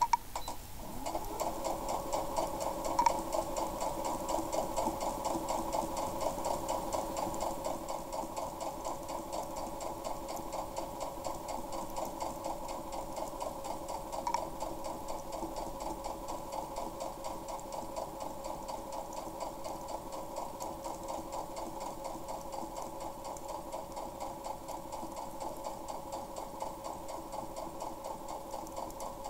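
Compact electric sewing machine stitching continuously, its needle mechanism running in a fast, even rhythm. It starts up about a second in and keeps a steady pace.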